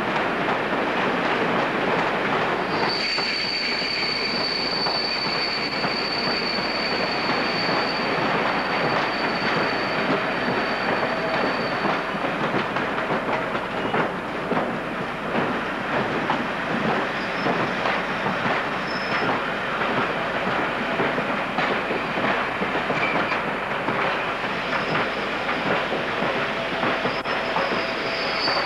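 InterCity coaches rolling past: a steady rumble with the clatter of wheels over rail joints. A high, steady wheel squeal sets in about three seconds in and fades out around twelve seconds, and a fainter squeal returns near the end.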